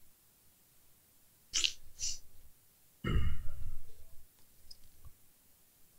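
A man with a heavy cold sniffs twice, then gives a loud cough lasting about a second, about three seconds in.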